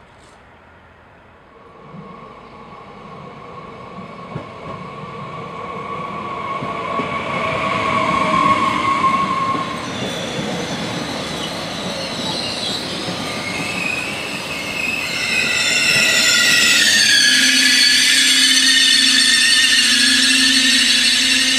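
SNCF TER AGC bi-mode multiple unit of the B 81500 series pulling into a station stop. Its running noise grows louder as it approaches, and from about halfway its brakes and wheels squeal with several high, wavering tones as it slows.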